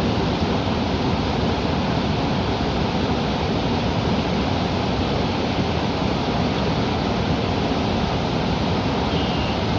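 River water rushing steadily, an even, unbroken wash of sound. Near the end a faint short bird note is heard over it.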